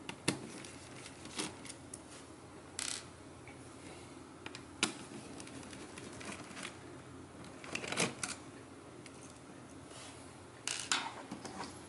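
Scattered light clicks and scrapes of hands and a screwdriver working at an opened laptop's hinges, against its plastic and metal frame, with the strongest clicks a little past the middle and near the end.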